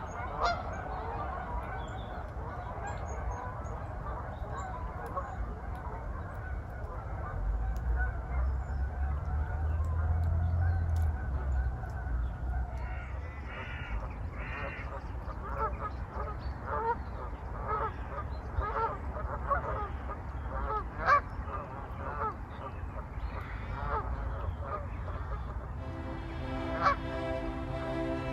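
A large flock of geese honking on a lake: a dense, continuous chorus of overlapping calls that thins out after about twelve seconds into separate, repeated honks.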